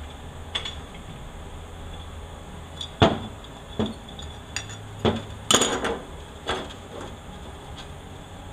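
Metal parts of a 4L80E automatic transmission clanking and knocking as they are handled during teardown: a string of about eight sharp clinks and knocks, the loudest about three seconds in and a quick cluster a little after five seconds.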